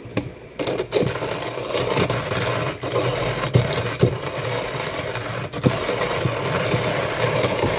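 Timemore Chestnut C2 Slim hand grinder's conical burrs crushing whole coffee beans as the handle is cranked: a steady, dense crunching that starts about half a second in.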